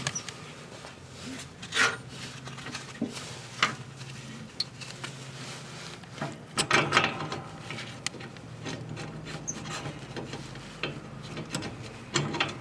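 Gloved hands handling metal parts: irregular clicks, small knocks and rubbing as bolts are fitted into the variable speed pulley's bearing holder on a lawn tractor frame, with a few louder clatters.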